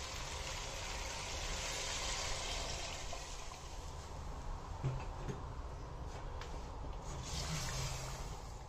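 Stock being poured from a glass jug into a steel pot of fried mutton trotters and masala: a steady pouring and splashing of liquid, strongest over the first few seconds. In the second half come a few light clicks and knocks as the pot is stirred with a spatula.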